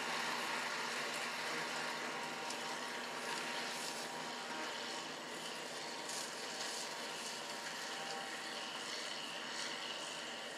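A John Deere 4840 tractor's diesel engine and the pull-type forage harvester it drives, chopping corn, heard as a steady drone at a distance that slowly fades as they move away.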